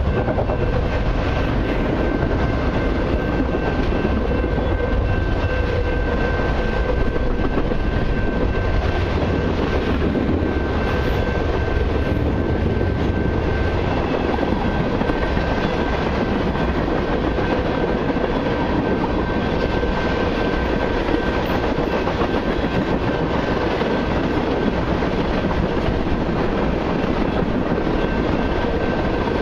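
Freight cars of a long autorack and intermodal train rolling past: a steady rumble and clatter of steel wheels on rail, with a thin steady ringing tone over it.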